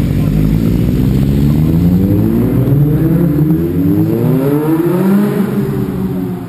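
Sport motorcycle engines running close by, then accelerating away, the engine note climbing in pitch for a few seconds before easing off near the end.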